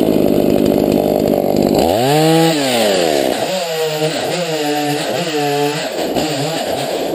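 Stihl chainsaw bucking a small log into rounds: running at full throttle through the cut for about two seconds, then the engine revs up and drops back about five times as it cuts and comes off the throttle.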